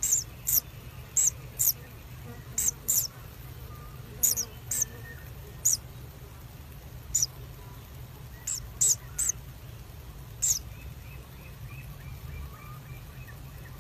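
Kingfishers calling: sharp, very high-pitched single calls and quick pairs, about one or two a second, stopping about ten seconds in. Near the end comes a faint, fast run of softer peeps. A low steady hum lies beneath.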